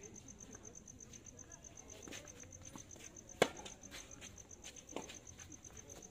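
Tennis ball struck by rackets during a rally: a sharp pop about three and a half seconds in and a fainter one about a second and a half later. Crickets chirp steadily in a fast pulse behind it.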